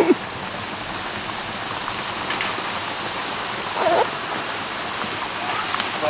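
Steady rush of a waterfall and its stream close by. A short voice-like call cuts in right at the start, and a briefer one comes about four seconds in.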